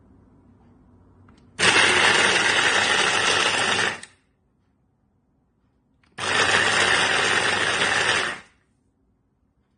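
Electric motor of a Dessini Italy RS-1686 capsule cutter food chopper running in two pulses of about two and a half seconds each, spinning its chopping blades, with silence between the pulses.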